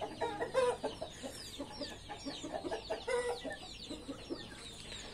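Backyard chickens clucking, with many short, high, falling chirps throughout.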